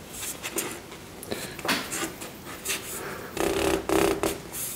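Brush and hand rubbing and scrubbing on watercolour paper in a series of short, irregular strokes, lifting and cleaning up wet paint. A brief low hum sounds near the end.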